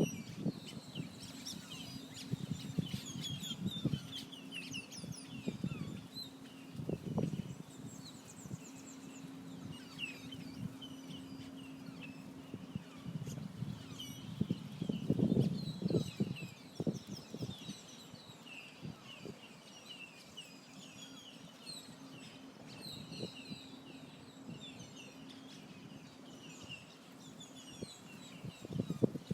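Many birds chirping and calling together in an evening chorus, with a few louder, lower calls about a quarter and half way in, over a faint steady low hum.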